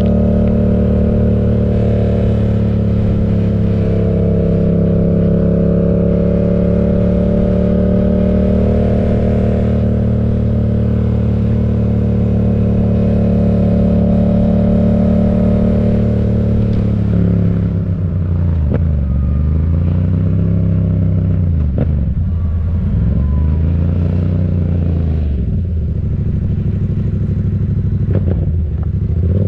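Yamaha MT-07's parallel-twin running through an M4 aftermarket exhaust, holding a steady speed at first. From about two-thirds of the way in, the engine note rises and falls again and again as the throttle is opened and rolled off.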